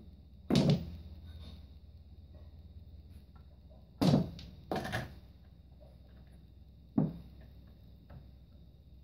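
Small tabletop pool table in play: four sharp knocks and thuds as the cue strikes and the balls hit each other, the cushions and the wooden table, one about half a second in, two close together around four to five seconds, and one at seven seconds.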